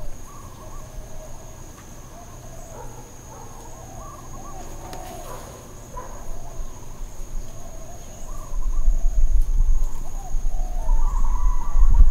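Dogs howling and whining, several wavering calls overlapping one another. Wind rumbles on the microphone from about eight seconds in.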